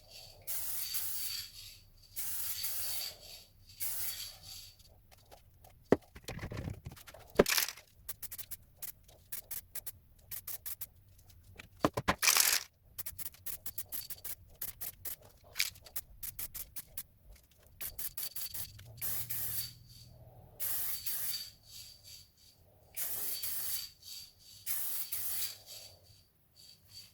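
Spray paint hissing on in repeated short passes, about a second at a time, with a thin whistle in the hiss. Twice there is a quick run of sharp rattling clicks between passes, like a spray can being shaken so its mixing ball rattles.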